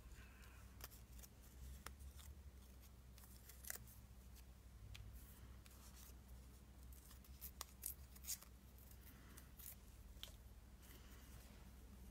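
Scissors cutting paper in faint, irregularly spaced snips, with a few louder snips a little past the middle.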